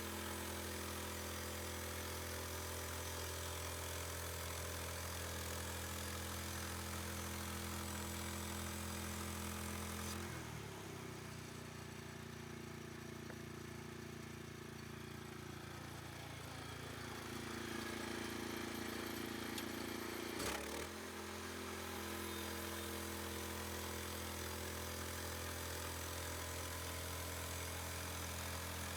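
Portable sawmill's engine running steadily while cutting lap siding from a pine cant. About ten seconds in the engine note changes, dipping and then rising in pitch, before settling back to the same steady run about twenty seconds in.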